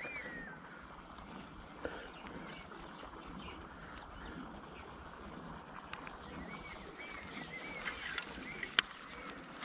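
A bird calling: short chirps that rise and fall, repeated in runs, over a steady outdoor hiss, with one sharp click near the end.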